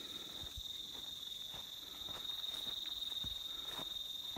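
Steady, high-pitched chorus of crickets, with faint footsteps and brushing of people walking through grass along a trail.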